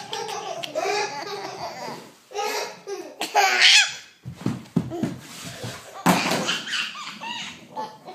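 A toddler laughing in repeated belly-laugh bursts with short breaths between them.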